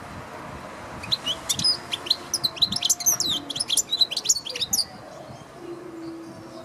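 European goldfinch singing: a fast run of high twittering notes that starts about a second in and stops near five seconds.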